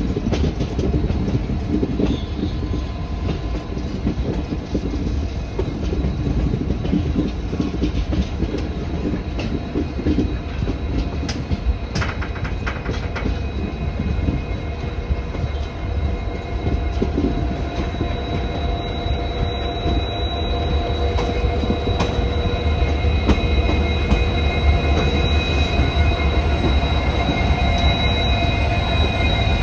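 Passenger train coaches rolling over the rails at low speed as the train comes into the station: a steady rumble with scattered clicks over rail joints and points. Past halfway a steady high metallic squeal sets in and holds, as the running grows slightly louder.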